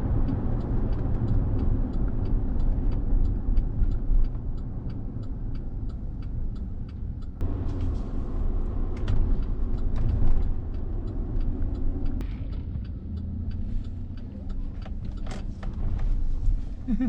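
Chevy Tahoe V8 SUV driving, heard from inside the cabin as a steady low engine and road rumble, with faint regular ticking higher up.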